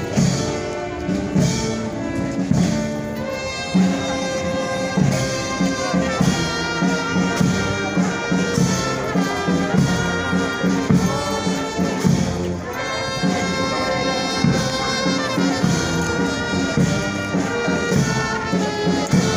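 Brass band playing a melody, trumpets and low brass carrying the tune over a regular beat.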